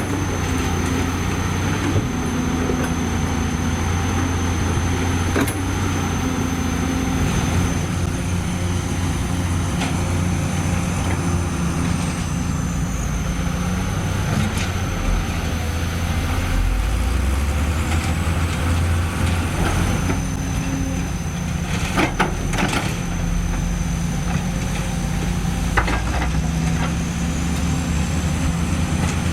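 Heavy diesel earthmoving machinery running steadily, its engine pitch shifting with load, with a faint high whine that rises and falls. A few sharp metallic knocks come about two-thirds of the way through.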